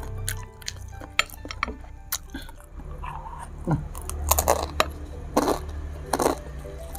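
Close-up mukbang eating sounds: chewing and crunching of food, with a few sharp clicks. Several louder crunches come in the second half.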